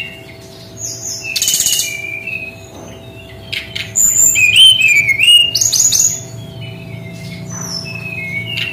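Brown-chested jungle flycatcher singing: clear whistled notes that slide up and down, mixed with quick rattling bursts, the loudest phrase about four to six seconds in.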